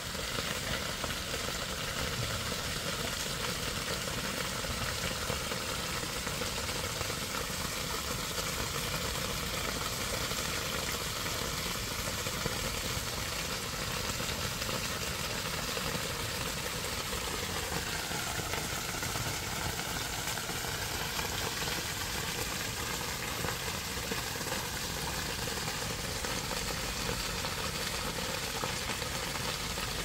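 Small pond fountain running: a dome-shaped jet of water splashing steadily back into the pond, an even continuous splashing.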